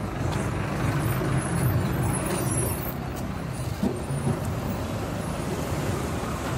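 A vehicle engine running steadily, with road traffic noise.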